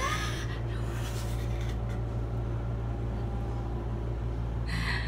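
Steady low mechanical hum inside an enclosed Ferris wheel gondola, with two brief rustling scrapes of the phone being handled, one near the start and one near the end.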